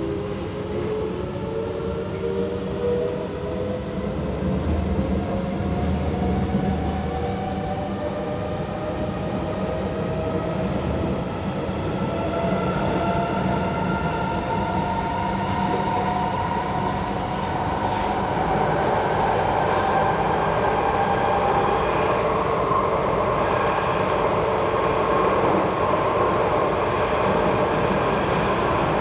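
Interior of a C751B metro train: the traction motors whine in several tones that climb steadily in pitch as the train accelerates, over the steady rumble of the wheels on the track.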